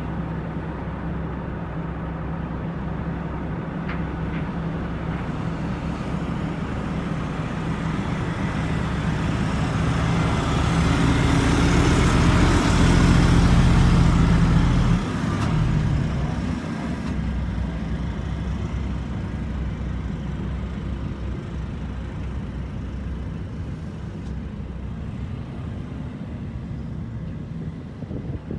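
Heavy diesel truck engine running steadily with road traffic noise. A vehicle grows louder toward the middle, peaks, then drops away abruptly, and the steady engine hum carries on.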